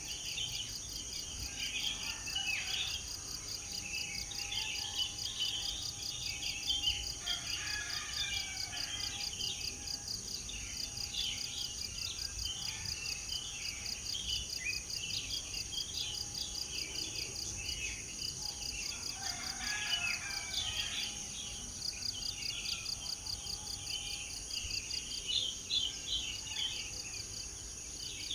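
Many birds chirping and twittering in short, scattered calls over steady, high-pitched insect trilling.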